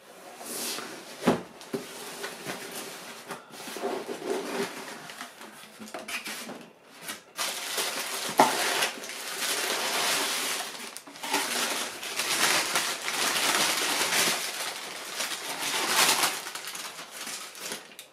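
Tissue paper rustling and crinkling as it is handled and pulled aside in a cardboard shoe box, with a couple of sharp knocks from the box.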